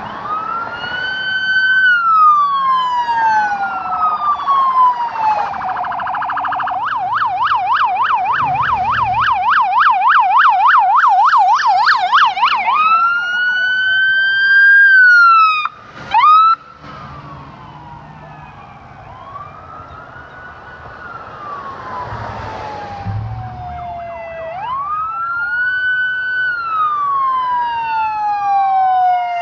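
Police car sirens sounding as the cruisers pass, mostly a slow rising-and-falling wail. For several seconds after the start it switches to a fast yelp of about three to four sweeps a second, then goes back to the wail. A brief loud blast sounds about halfway through.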